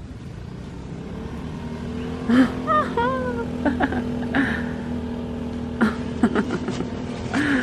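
A motor scooter engine running steadily, a steady drone that builds up over the first two seconds. Several short sharp knocks and a brief chirping call sound about three seconds in.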